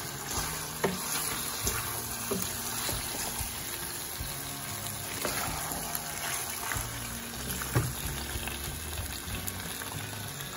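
Chicken pieces sizzling in a spiced onion-yogurt masala in a nonstick pan as a spatula stirs them, with a few short scrapes of the spatula against the pan. Soft background music plays throughout.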